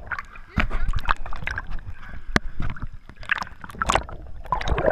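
Lake water heard through an underwater camera: a muffled low rumble of moving water with scattered clicks and pops from bubbles and from a swimmer's hand stroking past the lens.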